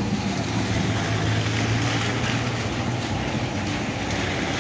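Steady rush of rain falling, with a low steady hum underneath that fades about three seconds in.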